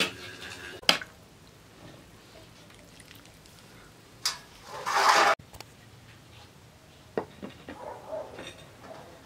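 Kitchen utensil sounds: a metal spoon clinking and scraping as cooked mushroom stew is pushed out of a glass bowl into a metal cooking pot. There is one sharp clink about a second in, a louder scrape lasting about a second near the middle that stops suddenly, and a few light knocks afterwards.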